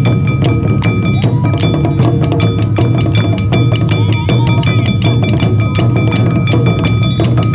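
Awa Odori hayashi band playing live: drums struck in a dense, steady beat, with a bright metal kane hand gong ringing continuously over them.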